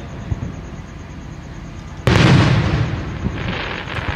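Aerial fireworks shell bursting with one loud boom about two seconds in that dies away. It is followed by a spell of fine crackling.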